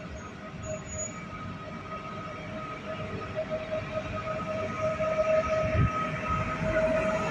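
A train approaching and growing steadily louder, with a steady whine over the rumble of the running gear.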